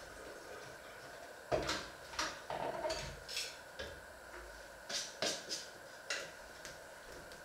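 Kitchen clatter: about eight short, light knocks and clinks as dishes and utensils are handled at the sink and counter.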